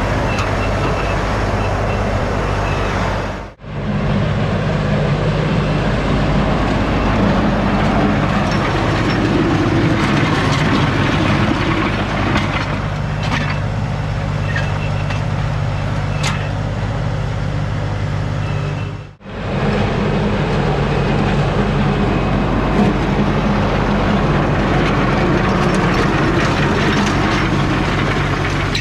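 LS MT357 tractor's diesel engine running steadily, with a low steady hum and a rush of noise over it. It breaks off for a moment twice, about three and a half seconds in and near the middle.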